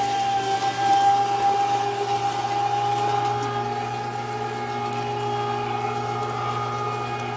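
Carnivore 1 hp electric meat grinder running with a steady hum and whine, grinding partly frozen chunks of pork shoulder.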